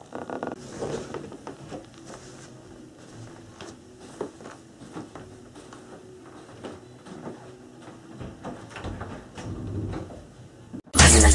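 Irregular soft knocks and scuffs of someone moving about a small room in sneakers, putting on a shoe and walking. Loud electronic music cuts in suddenly at the very end.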